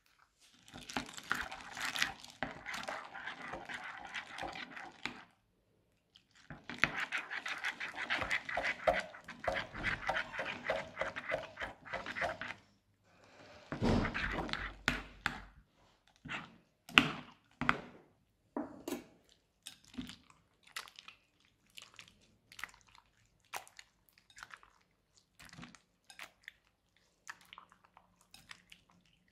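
Crunchy slime with small plastic cube beads being mixed by hand in a glass bowl: dense crackling and crunching for most of the first half, with a short break about five seconds in. Around halfway there is a louder, deeper wet squelch as the mass is stirred. After it come scattered squishes and small popping clicks as the slime is kneaded.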